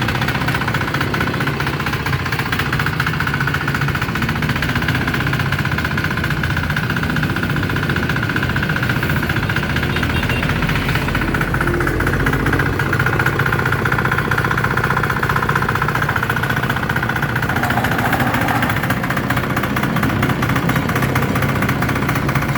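Small diesel engine of a Firman FTL 900 HD hand tiller, 5.2 hp, running steadily with a low, even drone.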